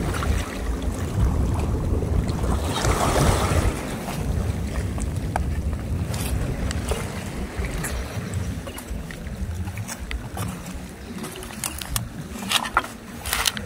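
Wind rumbling on the microphone, with a louder rushing gust about three seconds in. A few sharp clicks near the end.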